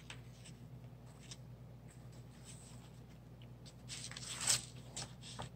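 Sheets of cardstock paper being picked up, slid and set down on a table: faint soft rustling and sliding, a little louder about four seconds in, over a faint steady low hum.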